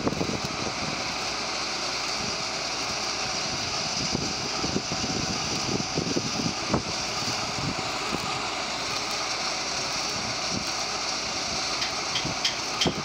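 Steady hum and hiss of a tram standing at the platform with its doors open, with irregular low wind buffets on the microphone and a few short high beeps near the end.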